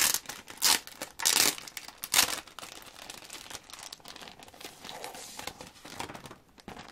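Clear plastic packaging crinkling and rustling as it is handled, with a few sharp crackles in the first two seconds and softer rustling after.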